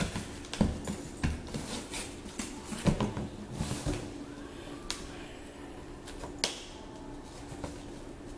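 Hands picking and scraping at the packing tape along the seam of a cardboard shipping box. There are scattered short scrapes, taps and scratches against the cardboard.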